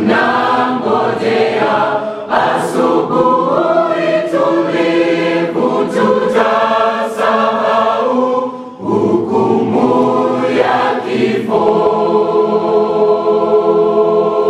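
Mixed church choir singing a gospel song in several-part harmony. The singing breaks off briefly about nine seconds in, then comes back and settles on a long held chord near the end.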